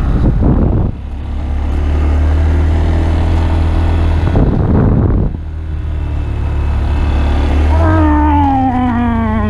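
Honda Grom's 125cc single-cylinder engine running low and steady, with two short rushes of noise. Near the end a loud wailing call starts and slides steadily down in pitch.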